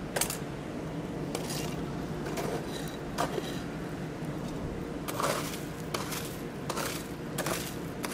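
Light metallic clinks and scrapes, about eight at irregular intervals, as a steel workpiece is handled with tongs and shifted about in the forge fire. A steady low hum runs underneath.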